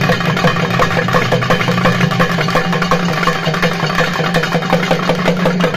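Naiyandi melam drums played in a fast, continuous roll of even strokes, over a steady low hum.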